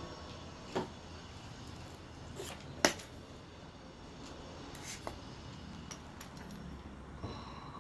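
Scattered small clicks and taps from handling a soldering iron and wires on a wooden tabletop while soldering, with one sharper knock about three seconds in.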